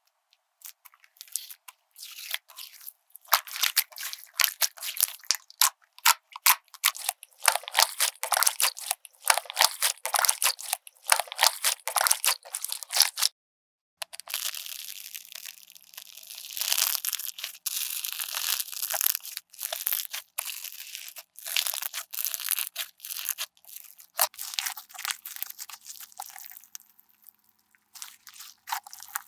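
Slime being squeezed and pressed by hand, giving dense crackling, crunching clicks in quick runs, with a short break about halfway through.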